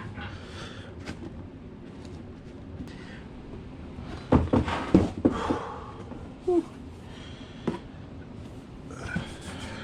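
Hand work on a plastic car bumper being cut with a knife: scraping and light clicks, with a cluster of loud knocks about halfway through, over a steady low hum.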